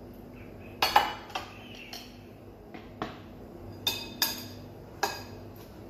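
Dishes and a metal spoon clinking against a glass salad bowl, about eight sharp knocks with a short ring, spaced irregularly over a few seconds.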